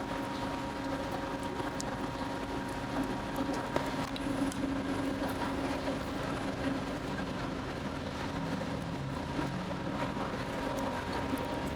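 Steady hum of bakery machinery with a constant low drone and a fainter higher whine, and scattered light clicks and knocks.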